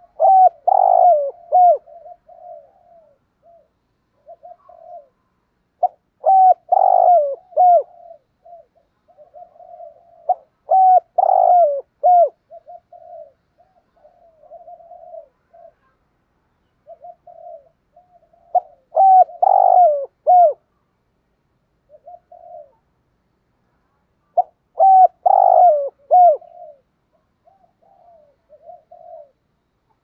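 Spotted dove cooing: five loud multi-note coo phrases a few seconds apart, with softer, quieter coos in between.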